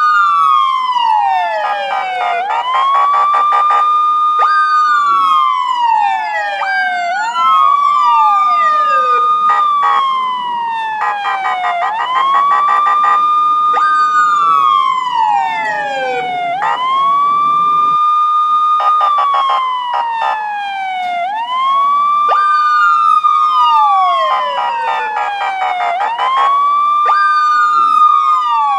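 Police car siren wailing: each cycle the tone jumps up, holds high, then slides down, repeating about every two and a half seconds. A second siren's falling sweeps overlap it out of step.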